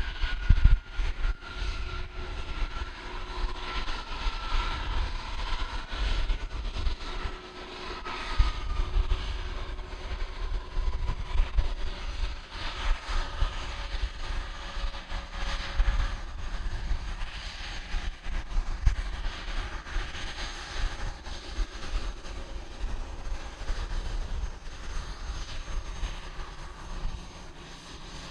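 Business jet's turbofan engines droning as it departs and climbs away, its whine slowly falling in pitch over the first ten seconds and fading, over a gusty low rumble.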